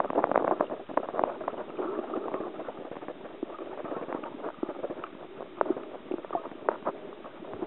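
Underwater sound picked up by a camera held below the surface: a muffled rushing noise with irregular clicks and crackles, densest in the first second or so.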